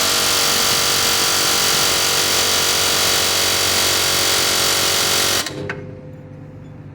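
Harbor Freight Chief medium-barrel pneumatic air hammer hammering continuously at full rate, driving a bit against a bushing to knock it out. It stops suddenly about five and a half seconds in.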